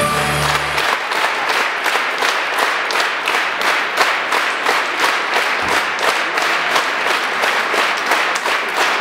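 The folk dance music ends about a second in, and an audience applauds for the rest of the time.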